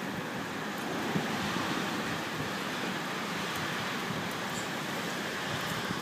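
Blizzard wind blowing steadily, heard as an even rushing noise.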